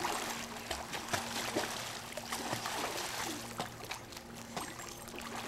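Swimming-pool water splashing and sloshing as children swim, with many small irregular splashes that ease off somewhat partway through. A faint steady low hum sits underneath.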